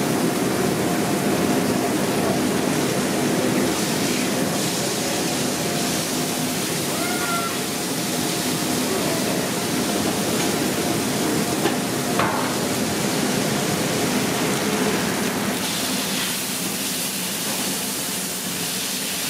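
Steady rushing noise of a fast-food kitchen: ventilation and griddle running. A faint steady hum runs under it for most of the time, and there is one light click about two-thirds of the way through.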